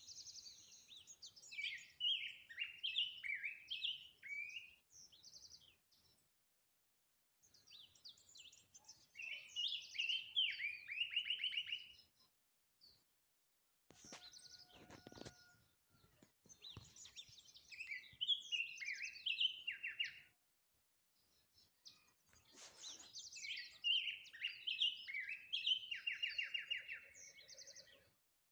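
A golden-bellied grosbeak (Peruvian "tuya") singing: four long phrases of rich, quickly varying warbled notes ending in trills, separated by pauses of a second or two. A short rustling noise comes about halfway through.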